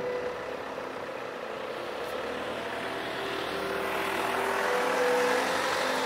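A white minibus driving past close by, its engine and tyre noise swelling to a peak about five seconds in and then easing off.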